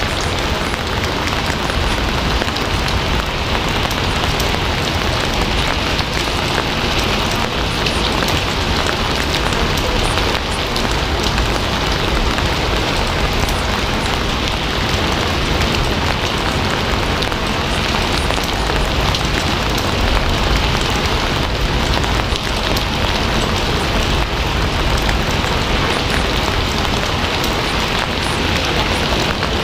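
Steady rain falling on a surface: an even, unbroken patter with no break or change.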